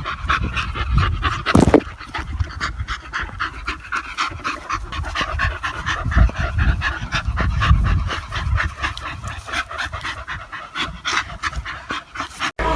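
Border Collie–Blue Heeler cross dog panting rapidly and steadily, with a single bump about a second and a half in.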